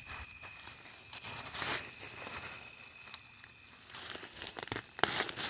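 Crickets chirping, a short high chirp repeating about two to three times a second, with a steady high insect trill that stops about four seconds in. Brief rustling noises come and go over it.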